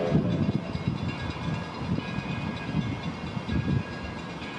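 The Edison steam locomotive running, heard as a low, uneven rumble with irregular pulses.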